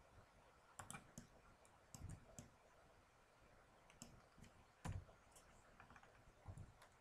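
Faint computer keyboard key presses and mouse clicks, about ten scattered clicks at irregular intervals, a few with a duller thud.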